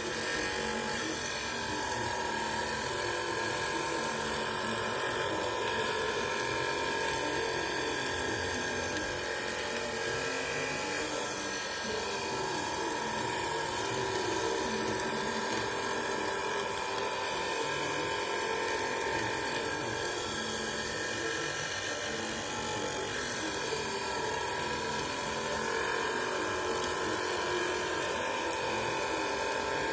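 Electric grinder running steadily with a high whine while sharpening a planer blade. Its pitch wavers slightly a few times.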